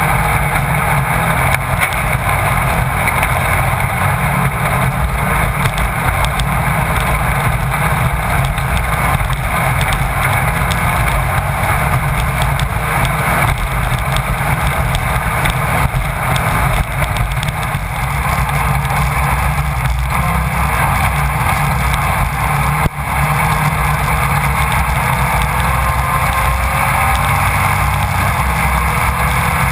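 Class 1600 off-road race car's air-cooled VW 1600 cc engine running hard at speed, heard through an onboard camera with wind noise on the microphone. The sound is loud and steady, with one brief dip about two-thirds of the way through.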